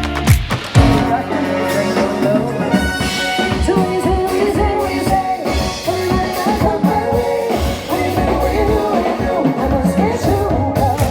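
A song plays: a singing voice over a band with a steady drum beat.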